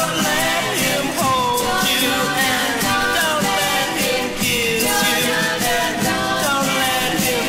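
1965 pop single playing: a full band with a steady beat and gliding melodic lines.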